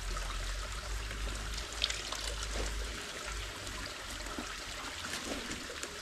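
Stream water flowing steadily, with one sharp knock about two seconds in.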